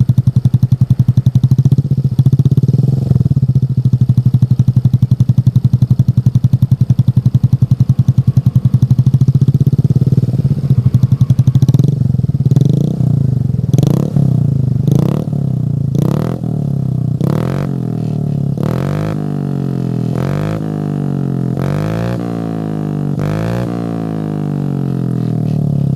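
Motorcycle engine with an aftermarket racing exhaust idling with a steady, pulsing beat, rising briefly once early on. From about halfway it is blipped on the throttle in a run of quick revs, roughly one a second, each rising and falling back to idle.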